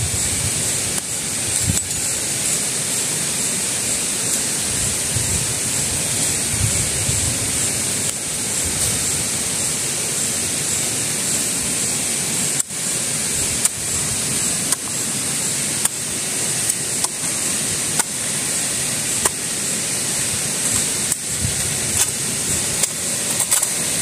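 A steady rushing hiss, with light scrapes and clicks of a small shovel digging into soil.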